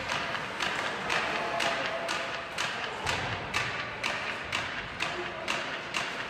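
Sharp knocks repeating at about two a second over the steady murmur of an ice hockey arena.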